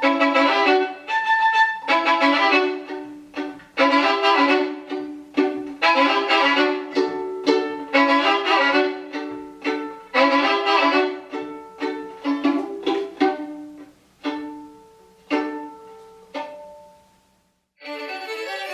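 Solo violin playing a passage of repeated chords and double stops, each attack decaying; the notes thin out and fade to a brief pause, and playing resumes near the end.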